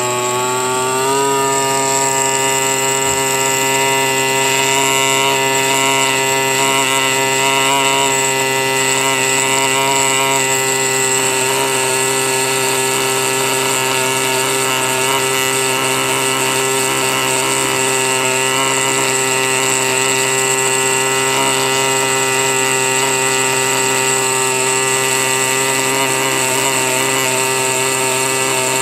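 Pneumatic air scribe buzzing steadily as its vibrating stylus chips away rock matrix around a fossil crab in a concretion. Its pitch rises briefly as it comes up to speed about a second in.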